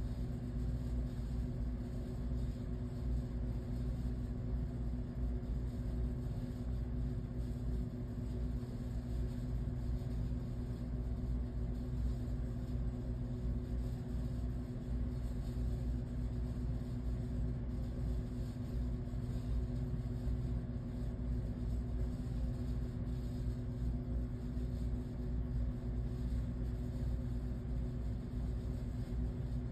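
Steady low hum and rumble of a running engine, unchanging throughout.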